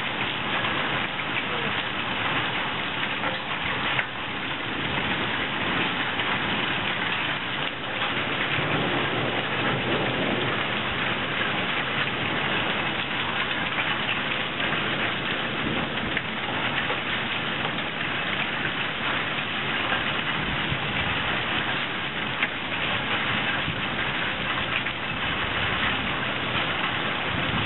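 Heavy storm rain pouring down steadily: a dense, even hiss of drops striking the ground.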